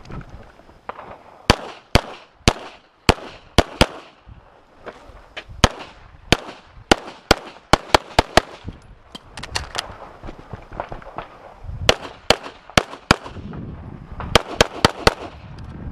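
Handgun fired in rapid strings of shots, each shot with a short echo, in groups of two to six with short pauses between: a shooter working through a timed practical-shooting course of fire.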